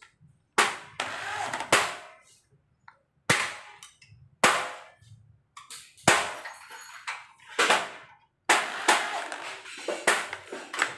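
About a dozen sharp metallic knocks and clatters from tool work on an aluminium door frame, coming irregularly, each ringing briefly.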